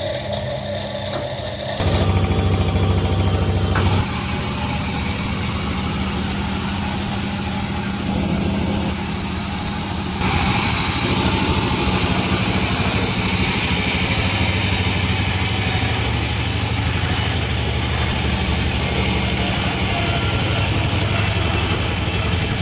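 Sawmill engine running steadily. From about ten seconds in, a loud hissing rasp joins it as the saw blade cuts through bayur wood, with abrupt shifts in the sound near two, four and eight seconds.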